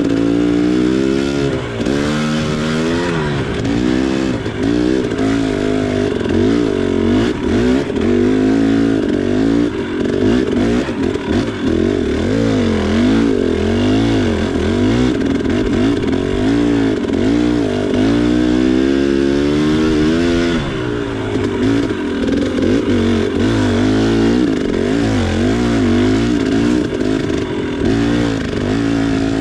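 KTM 300 XC two-stroke single-cylinder dirt bike engine revving up and down as it is ridden, its pitch rising and falling every second or so with the throttle on and off.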